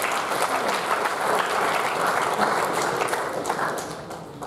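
An audience applauding, a dense patter of many hands clapping that fades out near the end.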